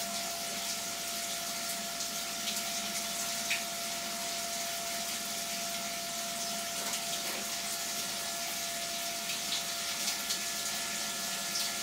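A CNC mill's flood coolant pump running, with coolant streaming from the flexible nozzles and splashing inside the enclosure: a steady rush of liquid over an unchanging hum.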